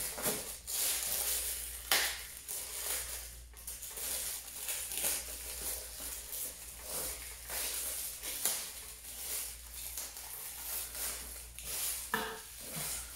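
A shipping package being cut open with scissors and its wrapping pulled apart: a run of irregular crinkling and rustling with a few sharper snaps and cracks.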